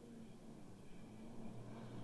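Faint, steady low drone of a distant rally truck's diesel engine, growing slightly louder near the end as it approaches.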